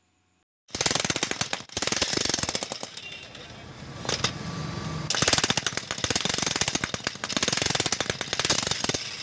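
A 16 kg demolition hammer starts abruptly under a second in and runs with rapid, continuous hammering. Its chisel bit is pounding into a lump of stone on a test run after a repair that gave it a new neck pipe.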